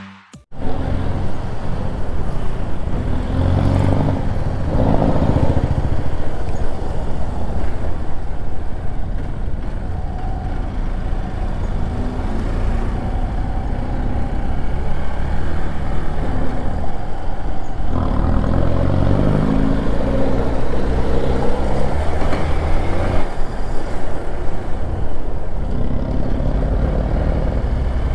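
Hero Xpulse 200 4V single-cylinder motorcycle engine running under way. Its note rises and falls several times with throttle and gear changes, over a steady rushing noise.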